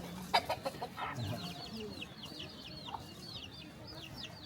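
Chickens calling: a few clucks in the first second, then a fast string of short, high chirps, about four a second.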